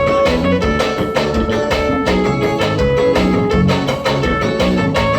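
Live forró piseiro band playing an instrumental passage with no singing: held melody notes over a steady drum beat.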